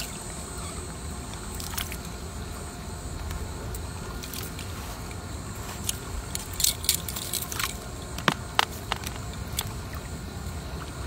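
Fishing net being paid out by hand: light clicks and rustles from its plastic floats and mesh, clustered between about six and nine seconds in, over a steady low rumble.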